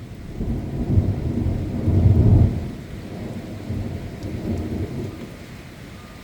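Thunder rumbling: it builds to its loudest about two seconds in, then dies away with a smaller swell near the end. Rain falls steadily throughout.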